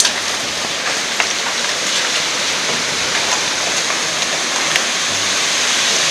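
Heavy rain of a short thunderstorm squall, a steady hiss with a few sharp drop hits scattered through it.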